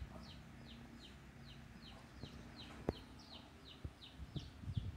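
A bird's faint, high peeps, each falling in pitch, repeating steadily about two or three times a second, with one sharp click about three seconds in.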